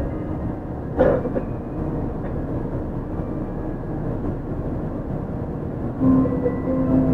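Onboard running sound of a Yui Rail 1000-series monorail car with Hitachi IGBT VVVF inverter control: steady rolling noise of its rubber tyres on the guideway, with one thump about a second in. About six seconds in, the inverter and traction motors' steady whine sets in as the motors take up power.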